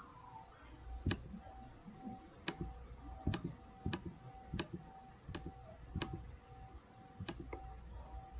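Computer mouse clicking about nine times, roughly once every two-thirds of a second, closing browser tabs one after another.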